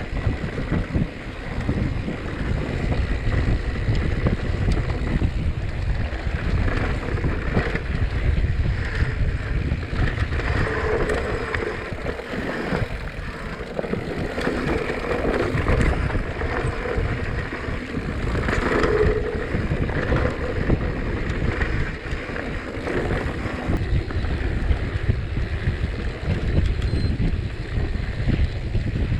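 Wind buffeting the microphone of a camera riding along on a moving mountain bike, with rumble from the bike on the trail underneath.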